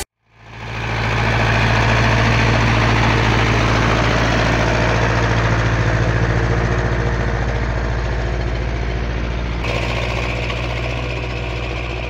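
Zetor 5340 tractor's diesel engine running steadily under load, pulling a plough through the soil; the sound fades in over the first second, with a slight change in sound near the end.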